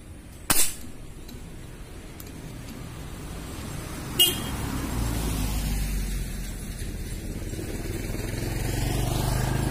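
A PCP air rifle rigged for dart fishing fires once with a sharp crack about half a second in. A second sharp click comes about four seconds in, then a rushing background noise swells.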